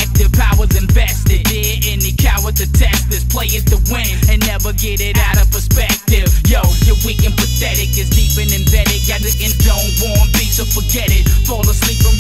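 Hip hop track: a rapper's vocal over a beat with deep bass and regular drum hits. The whole track cuts out for a split second about six seconds in.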